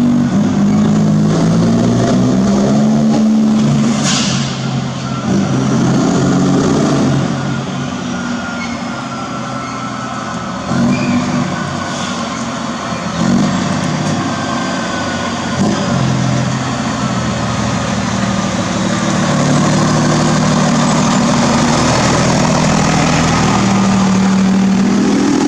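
Scania truck's diesel engine breathing through a straight-through exhaust with no muffler, running loud with its note rising and falling, dropping back for a few seconds in the middle. A short hiss comes about four seconds in.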